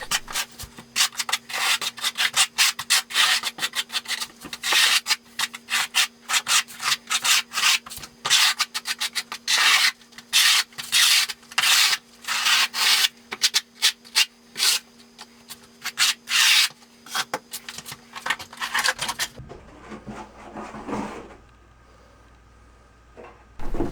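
A 1/4-inch square-notch trowel scrapes thinset across a plywood subfloor in quick repeated strokes, about two a second. A steady low hum runs underneath. The strokes stop a few seconds before the end.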